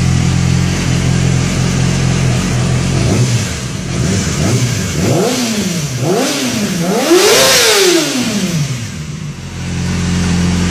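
Motorcycle engine idling, then blipped several times on the throttle, the revs rising and falling quickly, the last blip the highest, before it settles back to a steady idle near the end.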